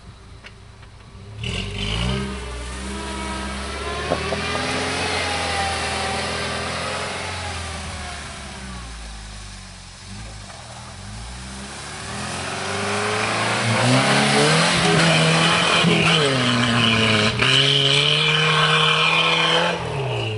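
Toyota 4x4's engine revving hard under load, its pitch climbing and falling repeatedly. It gets louder from about halfway through and the revs drop away near the end.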